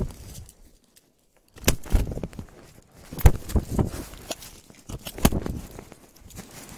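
Scuffle with an attacking male capercaillie: a run of irregular thumps and knocks with rustling between them, and a short hush about a second in.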